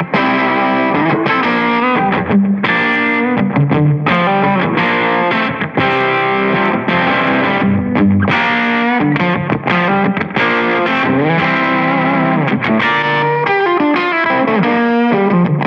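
Playback of a miked electric guitar amp recording: distorted electric guitar playing a heavy part of sustained chords and changing notes, with some effects on it.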